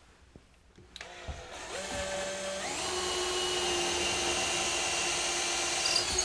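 Electric drill starting up about a second in, speeding up in a couple of steps, then running steadily at high speed while boring a hole. The drill is overheating and starts to smoke.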